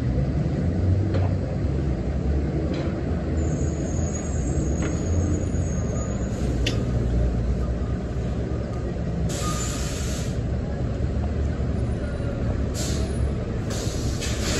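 Diesel city buses running and pulling into terminal bays, a steady low engine rumble, with a thin high squeal from about four to six seconds in. A loud air-brake hiss comes about ten seconds in, and shorter hisses follow near the end.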